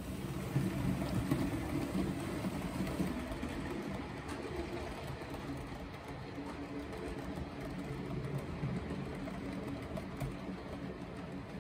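HO-scale model steam locomotive running with a rake of Rivarossi Crescent Limited passenger coaches: a steady electric motor hum with the wheels rolling on the track. It is loudest for the first few seconds as the locomotive passes, then the coaches roll by a little quieter.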